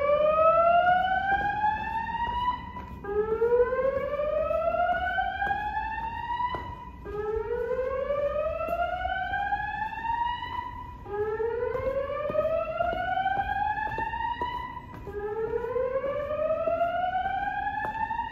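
Building fire alarm evacuation system sounding its whoop tone: a rising sweep that climbs for about three and a half seconds, then repeats every four seconds. It signals a building evacuation.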